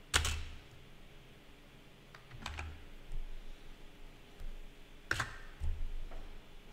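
A few separate keystrokes on a computer keyboard typing a short word, the sharpest right at the start and others about two and a half and five seconds in.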